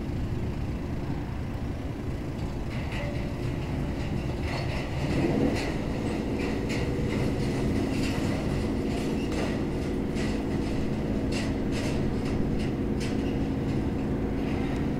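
An engine running steadily, its pitch rising about five seconds in and then holding, with a string of light clicks and clanks over it.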